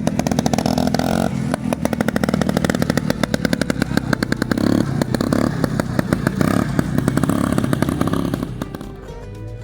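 Vintage snowmobile's two-stroke engine running and revving in rapid, popping firing pulses, its pitch rising and falling, then fading away near the end.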